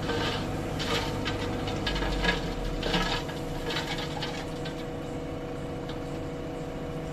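Tractor engine running steadily while its hydraulic tipping trolley dumps a load of red earth and stones, which rattle and scrape out of the bed over the first four seconds or so, then die away.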